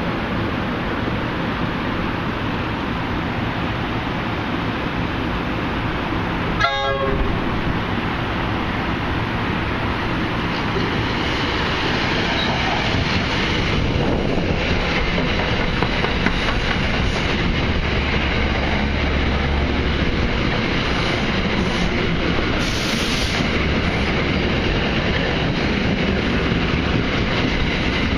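NJ Transit commuter train rolling past close by along the platform, with a steady rumble and clatter of its wheels on the rails.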